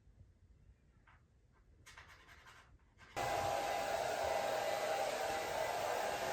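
Faint small clicks and handling sounds, then about three seconds in an electric blower such as a hair dryer switches on suddenly and runs steadily with a loud air rush and a motor hum.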